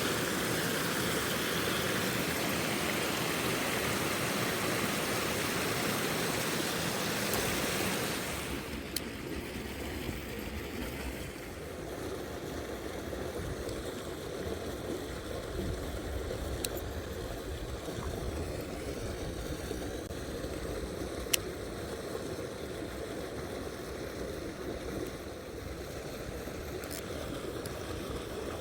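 Mountain stream water running, fuller and brighter for the first eight seconds or so, then softer. A few isolated sharp clicks come in the later part.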